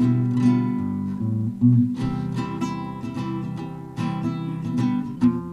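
Acoustic guitar strummed in a steady rhythm, about two strums a second, in an instrumental break between sung verses.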